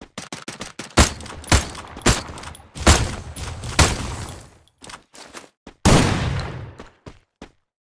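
A rapid, irregular series of sharp clicks and bangs. The loudest come about a second in, near three seconds and near six seconds, each with a short ringing tail.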